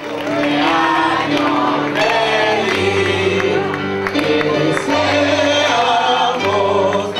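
Music with several voices singing together over steady held bass notes, starting abruptly.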